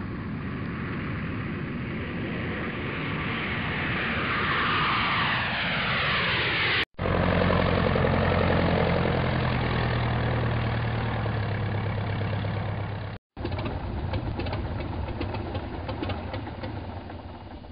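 Three aircraft sound-effect clips in a row, each cut off abruptly. First an aircraft passes with a whine falling in pitch, then an engine runs with a steady low hum, then a rattling, clicking engine sound fades away.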